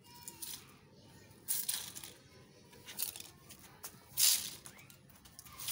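Plastic-bristled broom sweeping a concrete floor: several short scratchy strokes at uneven intervals, the loudest about four seconds in.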